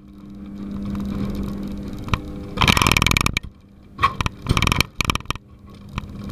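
Irradiator conveyor machinery with a steady low hum. About two and a half seconds in, bursts of rattling and scraping begin and come several more times near the end, as the lead-shielded camera box travels along the conveyor.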